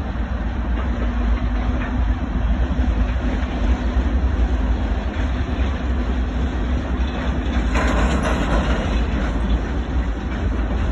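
Freight cars (tank cars and hoppers) rolling past on the rails in a steady rumbling clatter of wheels on track, with a brief louder burst of clatter about eight seconds in.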